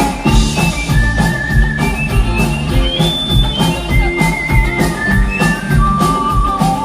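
A rock band plays an instrumental passage: a steady bass and drum beat under a high, held lead melody that slides between notes.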